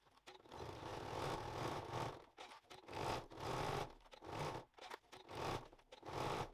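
Domestic sewing machine stitching a basting seam in stop-start runs, one longer run of about two seconds and then four short bursts, as the fabric is turned along the edges.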